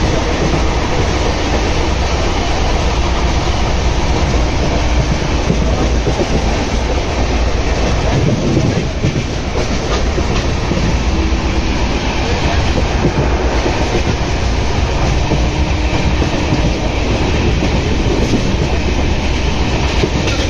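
Passenger train running at speed, heard from inside a coach at an open door or window: a steady rumble and clatter of the wheels on the rails.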